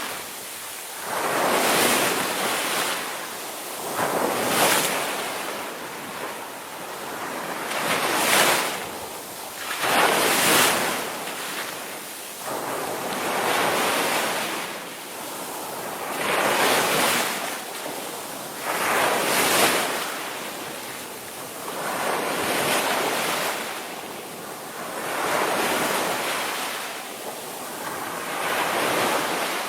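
Indian Ocean surf: waves breaking and washing up the shore, swelling and falling back in surges every few seconds.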